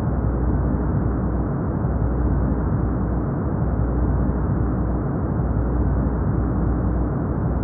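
Steady brown noise: a smooth, even rushing hiss weighted toward the low end, with nothing high and no changes.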